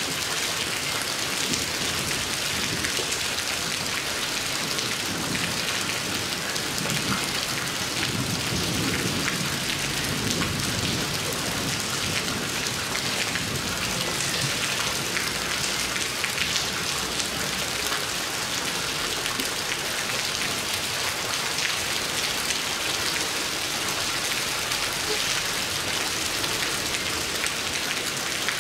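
Steady heavy rain pouring on tree leaves and a terrace, a dense even hiss of drops. A low rumble swells beneath it for a few seconds about a third of the way in.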